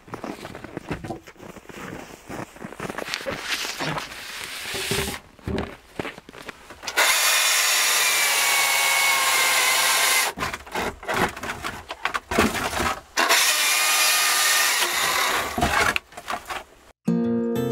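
A saw cutting through wood in long, steady stretches of sawing, with knocking and rubbing of wood before the cutting starts.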